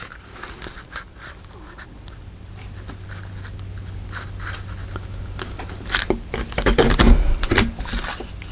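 Paper being handled and folded: soft rustling, scraping and creasing, busier and louder with a few low knocks on the table near the end.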